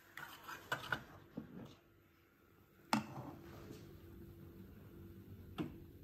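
A ceramic mug and a stainless steel milk jug being handled: a few light clicks and knocks in the first second, a sharper knock about three seconds in, and another near the end.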